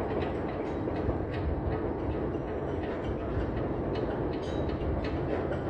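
Steady low rumble of running machinery with faint scattered clicks.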